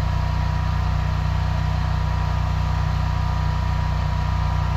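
High-pressure drain jetter's engine running steadily at a constant pitch, with a thin steady whine above the low drone.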